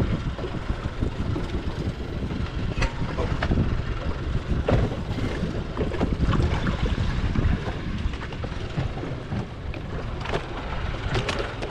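Wind buffeting the microphone aboard a boat at sea, a rough, uneven rumble with a couple of sharp knocks, one about three seconds in and one near the end.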